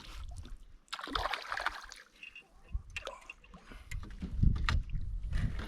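Water splashing and sloshing at a small fishing boat, with scattered knocks and a low rumble building up about four seconds in.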